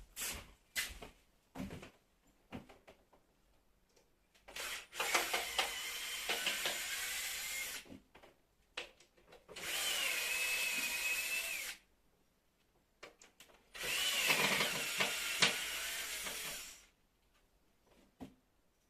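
Power drill running in three bursts of two to three seconds each, with a whine in its sound, and scattered clicks and knocks between the runs.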